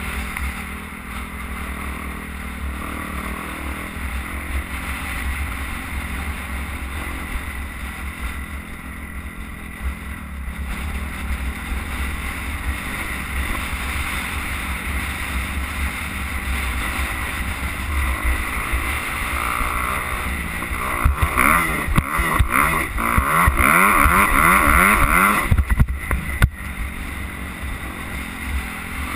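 Dirt bike engine running under way on a rough trail, with wind rumbling on the microphone. From about twenty seconds in, the revs climb repeatedly and the engine is loudest for several seconds, then it drops back.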